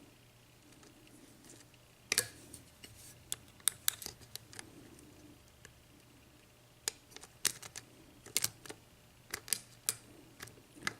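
Lock pick and tension wrench working the pins of a six-pin ERA euro cylinder lock: irregular sharp metallic clicks and ticks as the pick probes the pin stacks.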